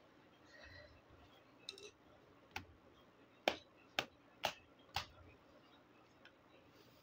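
Sharp clicks and taps on the hard plastic top of a lead-acid battery as it is wiped down and handled. There are two light ones, then four louder ones about half a second apart.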